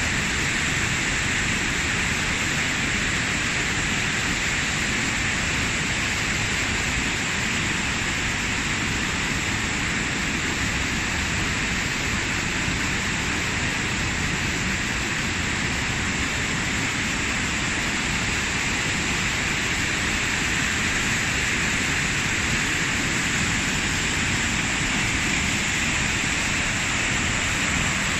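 Waterfall: water falling and splashing in a steady, loud rush that never lets up.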